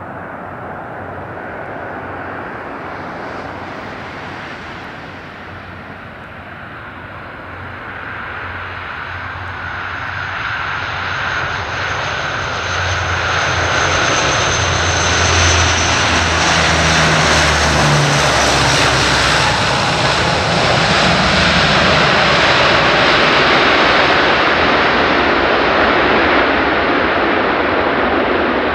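Antonov An-12's four Ivchenko AI-20 turboprop engines as the aircraft lands and rolls out along the runway: a steady propeller drone with a high turbine whine, growing louder as it comes in and loudest in the second half as it passes close.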